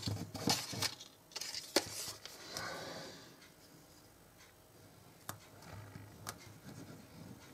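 Cardstock being handled and pressed down while gluing a small decorative piece: soft rustling and a few sharp clicks, with a quiet stretch in the middle.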